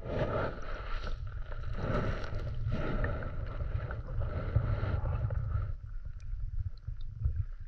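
Muffled low rumble and sloshing of shallow seawater heard through a submerged camera. The sound eases a little about six seconds in.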